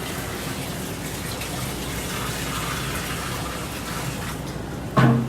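Steady rush of running water, with a short loud sound near the end.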